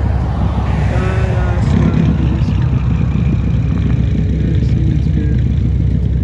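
A 2007 BMW 335i's twin-turbo inline-six with an aftermarket downpipe and street exhaust, running at low speed with a steady low drone and road noise.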